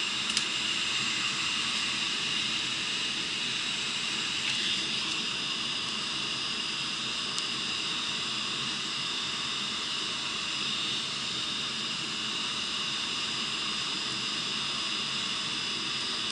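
Heat gun blowing steadily: a constant hiss with a high whine, with a couple of faint clicks.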